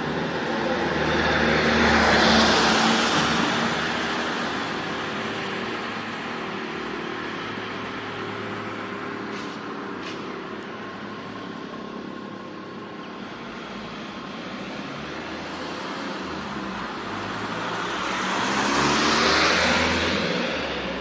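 Two cars pass by on a road, one about two seconds in and another near the end. Each swells up and fades away, with low traffic noise between them.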